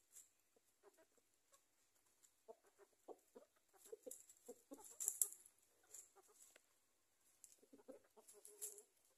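Javanese native chickens (ayam jawa) clucking softly in short runs of low clucks while foraging, with faint sharp clicks and rustles from pecking and scratching in dry leaf litter.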